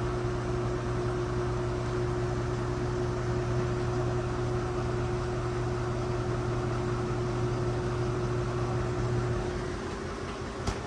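Washing machine in its final spin cycle, the drum spinning at speed with a steady motor hum and a steady whine above it. About nine seconds in the low hum drops away and the sound gets a little quieter, and a single sharp click comes near the end.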